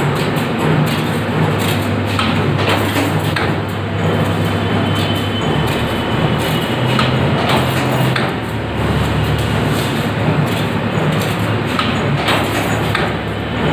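Automatic CNC stirrup bending machine running: a low motor hum that shifts pitch every few seconds, with scattered clanks and knocks of the steel bar being fed and bent into stirrups.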